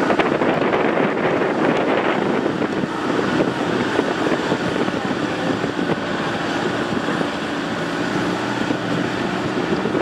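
Motorcycle engine running steadily while riding a dirt trail, with wind buffeting the microphone.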